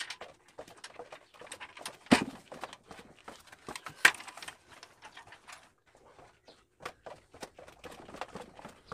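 Footsteps on open wooden stairs, with knocks and rattles from metal table-saw parts being carried, and two louder knocks about two and four seconds in.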